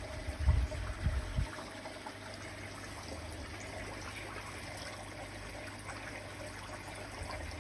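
Koi pond water trickling steadily, with a few low thumps in the first second and a half.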